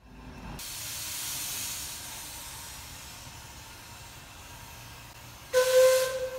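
Shay SL-31 geared steam locomotive letting off steam in a steady hiss that starts about half a second in and slowly fades. About five and a half seconds in, its steam whistle blows one loud, steady note.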